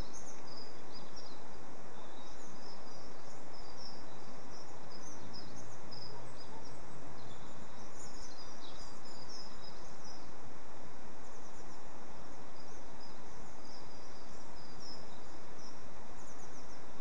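Steady outdoor hiss with many short, high bird chirps scattered throughout, small garden birds calling.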